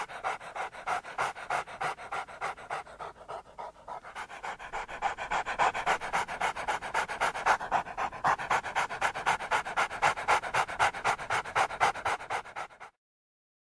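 A dog panting rapidly in an even rhythm, several breaths a second. It grows louder about four seconds in and stops abruptly near the end.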